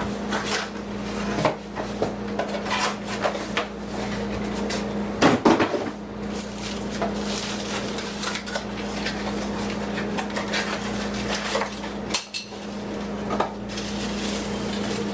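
Irregular clatter and knocks of hard plastic vacuum parts and accessories being handled and unpacked from their box, loudest about five seconds in, over a steady low hum.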